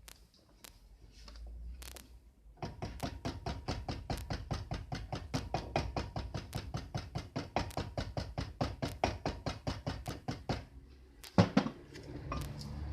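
Rapid, even hammer taps, about six or seven a second for some eight seconds, driving a new oil seal home in a Daewoo Sens rear wheel hub, then one louder knock near the end.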